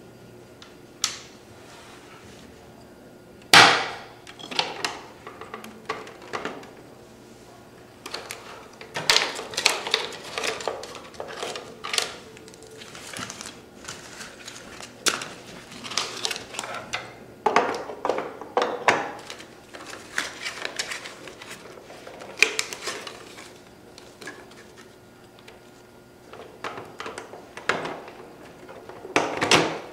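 Plastic clicks, knocks and rattles from a TSC TTP-247 thermal label printer as its top cover is unlatched, lifted and brought down and the label stock is handled inside. The loudest knock comes about three and a half seconds in, and a faint steady hum runs underneath.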